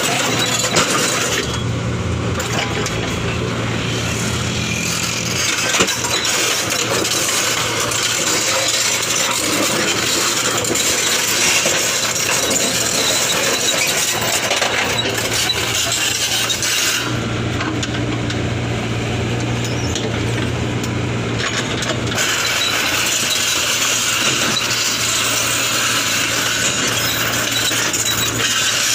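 Komatsu PC78US compact excavator's diesel engine running steadily, with scattered metallic clinks and rattles; the hiss and clatter drop away for a few seconds after about 17 s.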